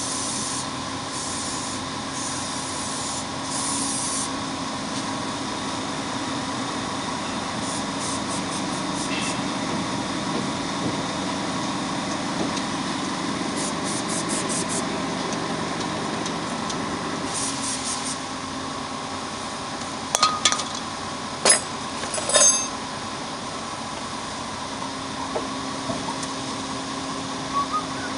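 Truck brake work: short spells of hissing air every few seconds over a steady low hum, then a few sharp metallic clinks of tools and brake parts about two-thirds of the way through.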